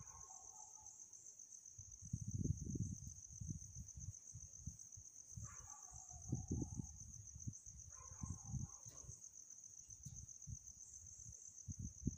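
Hands moving a plastic protractor, pen and paper over a desk: several short bursts of rustling and scraping. Behind them is a steady, high trilling chirr of crickets.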